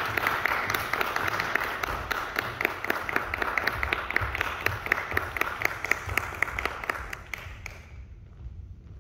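Audience applause with separate claps standing out, dying away about eight seconds in.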